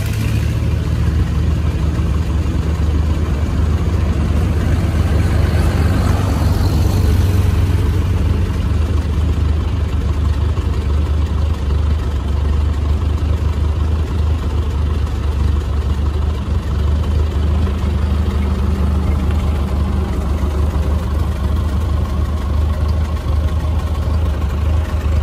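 Engines of an antique tractor and then an old flatbed truck running as they drive past one after the other, over a steady low drone.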